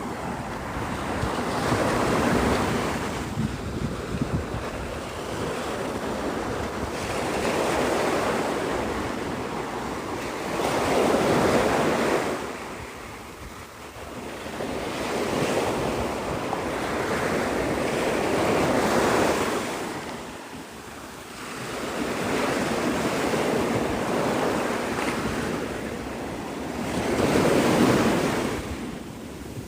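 Surf breaking on a sandy beach in repeated swells, each wash rising and falling over a few seconds, with wind rumbling on the microphone underneath.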